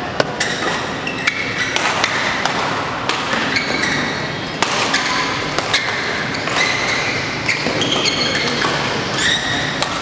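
Badminton rally: sharp racket strikes on the shuttlecock about every second or so, with shoes squeaking briefly on the court between shots.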